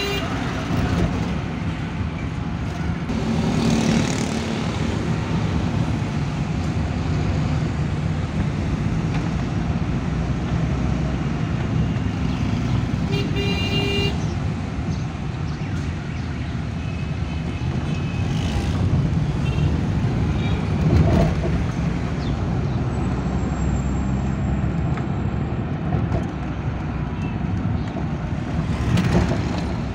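Suzuki Mehran's small three-cylinder engine and road noise heard steadily from inside the cabin while driving. About halfway through a short vehicle horn toots, and a few fainter honks follow a few seconds later.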